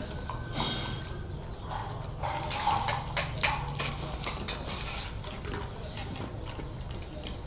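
Dogs eating from metal bowls on a tile floor: irregular clinks and scrapes of the bowls, busiest and loudest in the middle.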